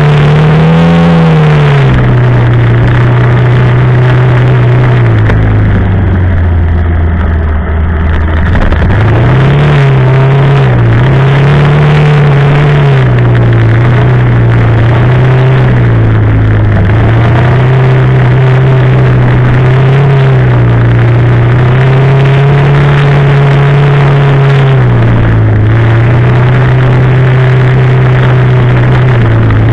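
Quad bike (ATV) engine running while riding, its pitch rising and falling with the throttle; it eases off about six seconds in and picks up again about nine seconds in.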